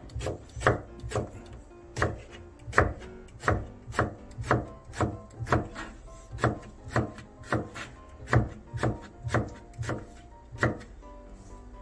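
Kitchen knife slicing eggplant on a cutting board, each cut ending in a sharp knock of the blade on the board, about two a second in a steady rhythm.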